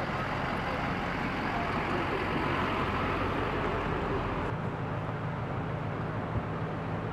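An ambulance's engine and tyres as it drives slowly past. About four and a half seconds in, the sound changes abruptly to a steady low hum of idling emergency-vehicle engines.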